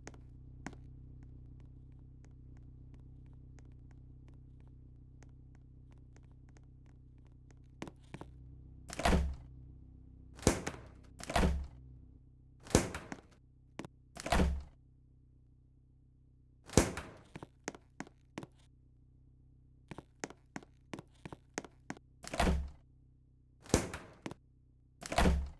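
A steady low hum, then, about a third of the way in, a run of about nine dull, irregularly spaced thuds with lighter taps between them.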